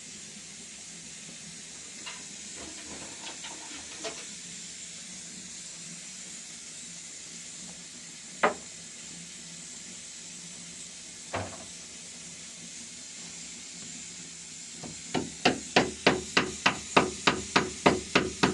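Hammering: a few single knocks, then a fast run of about fourteen sharp strikes at roughly four a second, starting about fifteen seconds in. A steady hiss lies under it.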